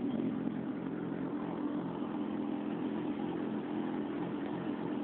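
Suzuki GSX650F's inline-four engine idling steadily, heard through its exhaust.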